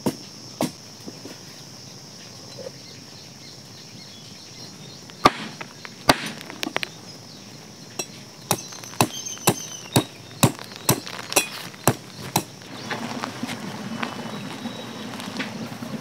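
Large knife chopping raw jackfruit on a wooden board: a run of sharp knocks at about two a second, lasting around four seconds. A couple of wooden pestle strikes in a stone mortar sound at the very start, with insects buzzing steadily behind.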